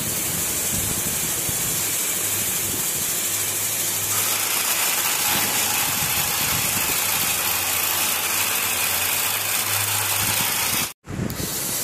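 Small DC motor running, driving a four-wheeled model cart along a wooden track: a steady hum under a constant hiss, with a brief dropout near the end.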